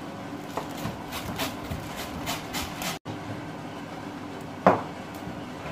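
Chef's knife chopping coriander stalks on a wooden chopping board: a quick run of knocks for about three seconds, then a single louder knock near the end.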